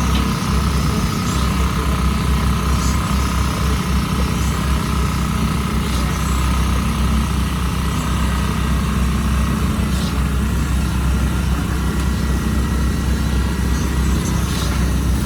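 A large engine running steadily at constant speed, with a steady high whine above it and a few faint clicks.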